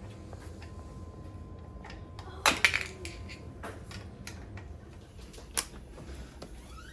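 Metal hand tools clinking and clattering against metal parts in irregular clicks, with the loudest clatter about two and a half seconds in and another sharp click later on.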